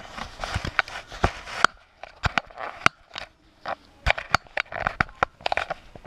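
A string of irregular sharp clicks and short crackly rustles, a dozen or more, closely spaced in the first second and a half, then in scattered clusters.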